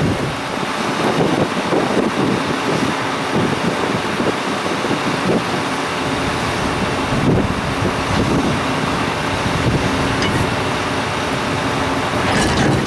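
A vehicle running, with dense, uneven noise throughout and a brief sharp sound near the end.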